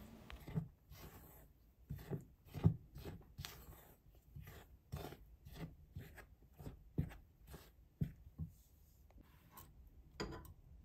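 Silicone spatula stirring a dry flour mixture in a glass mixing bowl: soft scrapes and light taps against the glass, roughly two strokes a second, irregular.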